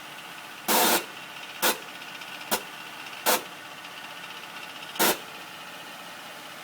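2009 Acura MDX's engine running steadily, with five short, sudden bursts of noise at uneven intervals over it, the first the longest. These are the strange noise the SUV has made since its A123 service.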